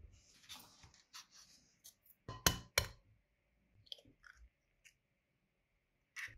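A hen's egg being cracked by hand: two sharp taps of the shell about two and a half seconds in, then a few faint crackles as the shell is pulled open, with one more click near the end. A brief rustle comes near the start.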